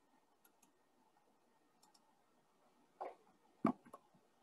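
Faint computer mouse clicks over quiet room tone: a few light ticks in the first two seconds, then a short cluster of sharper clicks about three seconds in, as a presentation slide is advanced.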